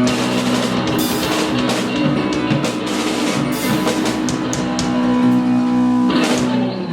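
Rock music: a band with drum kit, guitar and bass playing a song, which stops right at the end.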